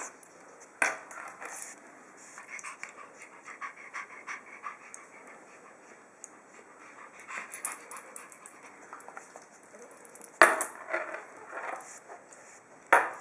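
Pug puppy panting and moving about, with light metallic clicks and clinks from the round metal tag on its collar and its claws on a hard floor. Three sharper knocks stand out: about a second in, after ten seconds, and near the end.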